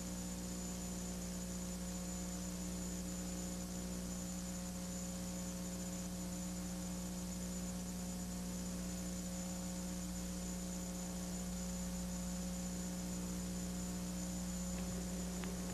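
Steady electrical mains hum with a faint hiss beneath it, unchanging throughout.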